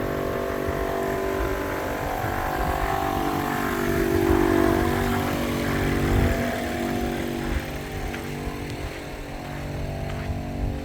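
A vehicle engine running steadily, swelling slightly about four to six seconds in.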